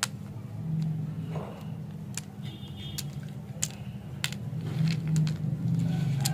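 Hard candy lollipops and their plastic sticks clicking and tapping against each other as they are handled, a dozen or so sharp little clicks, over a steady low drone that swells now and then.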